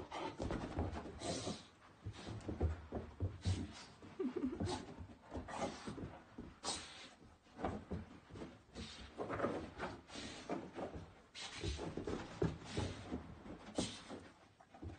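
Basenji dog rubbing its face and body along the carpet and rolling on its back to dry itself after a bath, giving many irregular short scuffs and rustles.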